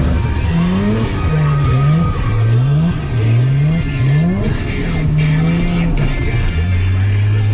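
Turbocharged 13B rotary engine of a Mazda FC RX-7 drift car, revved up sharply about nine times in quick succession while drifting, then held at a steady note near the end.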